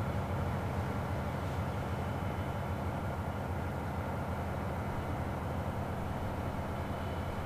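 Diesel train engine running steadily, a low even drone with no change in pitch or level.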